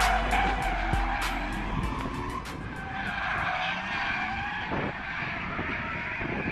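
Drift cars sliding in tandem with engines revving, the engine note rising and falling, and tyres squealing. Background music with a beat fades out in the first two seconds or so.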